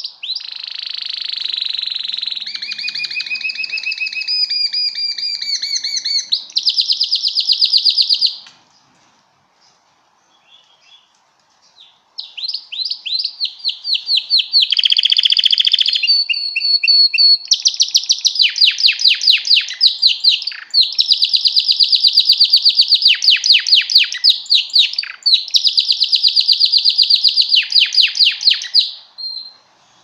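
Male yellow domestic canary singing: long runs of fast, high trills and rolling phrases. The song breaks off for a few seconds about a third of the way in, then starts again and runs on until just before the end.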